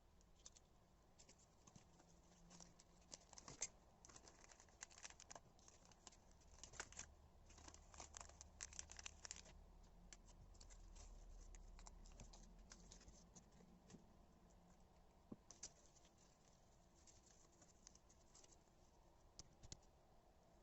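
Faint close-up rustling, crackling and small clicks of washi tape being peeled off its roll, wound and torn or snipped, in busy clusters with short pauses between them.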